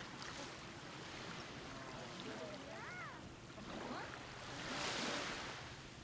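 Sea waves washing onto a beach, with one wave swelling and breaking about five seconds in.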